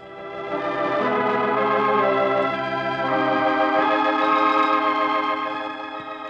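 Organ music bridge between two scenes of a radio drama: sustained chords swell up over the first second, change a few times, and fade down near the end.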